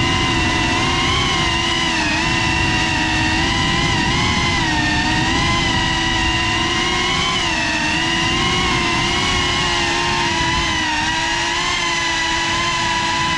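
Electric motors and propellers of an FPV freestyle quadcopter whining steadily, the pitch wavering up and down a little with the throttle, over a rushing noise.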